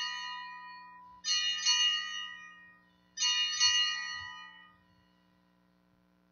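Altar bells rung at the elevation of the chalice. A ring of several small bells fades out, then two more rings start about a second and about three seconds in, each bright and jingling and dying away over a second or two.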